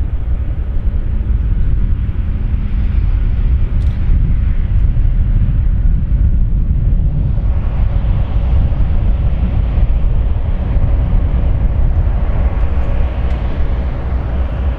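GE ES44C4 diesel-electric locomotive running as it pulls the train past: a steady, heavy low rumble. It grows fuller about halfway through as the locomotive draws level.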